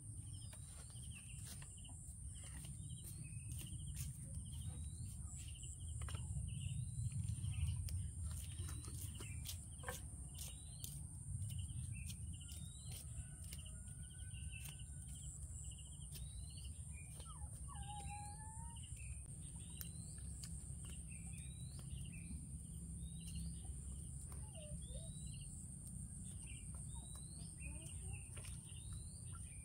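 Outdoor countryside ambience: small birds chirping over and over in short rising calls, over a steady high-pitched insect drone. A low rumble underneath swells briefly about a quarter of the way in.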